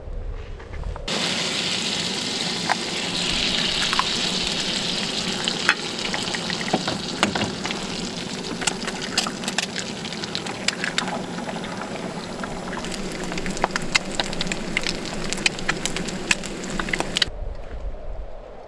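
Eggs sizzling in hot fat in a frying pan, a steady hiss full of small crackling pops. The sizzle starts abruptly about a second in and cuts off shortly before the end.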